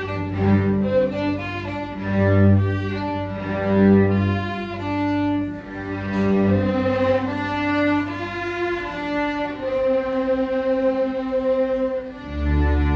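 Instrumental music: a slow melody of held notes over sustained low bass notes, with a fuller, louder low chord coming in near the end.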